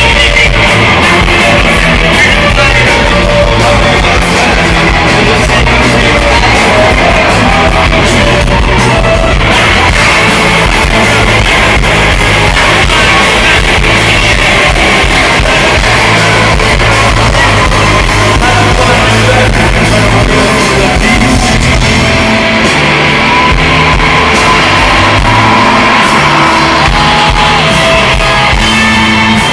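Live rock band playing loud: electric guitars, bass and drums with a singer shouting and singing over them, heard from within the crowd.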